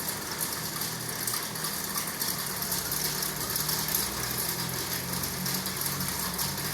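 Storm noise of wind and heavy rain, a steady rough hiss, with a low steady hum underneath.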